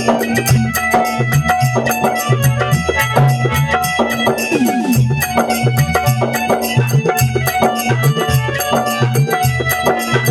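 Instrumental passage of Rajasthani folk devotional music: quick, steady drum beats over a pulsing bass line, with held melody notes from a keyboard-type instrument.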